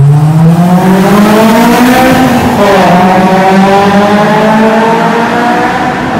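Honda S2000's inline-four engine at full acceleration through a J's Racing FX-PRO 70RS full-titanium aftermarket exhaust: a loud exhaust note rising in pitch, dropping briefly about two and a half seconds in, then climbing again. Later it echoes inside a road tunnel.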